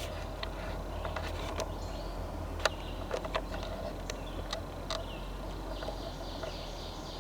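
Scattered, irregular sharp clicks and light crackles over a steady low rumble, with a few faint high chirps from a small bird.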